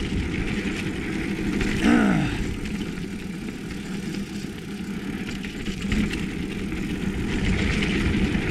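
Mountain bike rolling down a dirt trail, with wind rushing over the helmet-mounted GoPro and steady tyre and trail rumble. About two seconds in there is a brief sound that falls in pitch.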